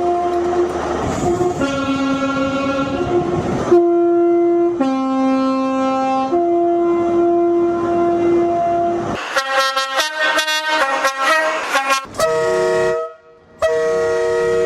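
British train horns sounding in turn, each a loud, steady horn tone, several switching between a high and a low note. Around the middle one horn sounds choppy and stuttering, and there is a brief drop in sound shortly before the end.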